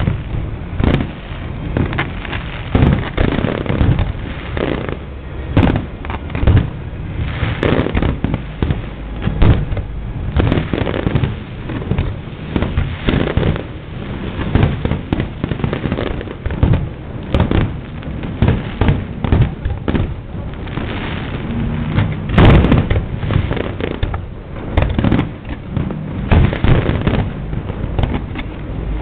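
Aerial fireworks display: a constant, irregular run of bangs and booms, several a second and overlapping, with an especially loud burst about three-quarters of the way through.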